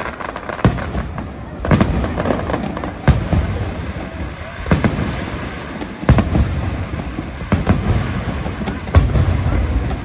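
Aerial fireworks shells bursting in a display: about nine loud bangs, one every second or so, each followed by a long low rumble.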